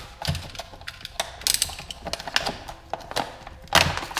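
Utility knife slicing through a thick clear plastic parts package, then the plastic being pulled open with irregular crinkling and crackling; the loudest burst of crackling comes near the end.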